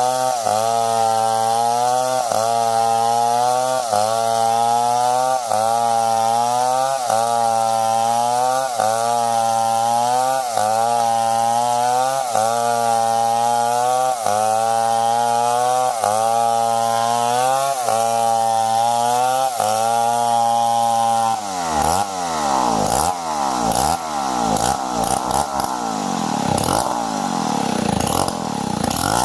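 Stihl 070 two-stroke chainsaw running at high revs in a cut, its pitch dipping briefly about once a second as the bar bites under load. About 21 seconds in, the engine pitch starts sweeping up and down quickly, with several tones crossing.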